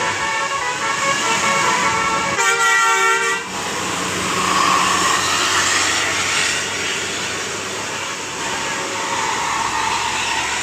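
Indonesian bus 'telolet basuri' musical horn sounding pitched multi-tone notes, the loudest blast about two and a half seconds in and lasting about a second. After it, steady vehicle noise with no horn tones.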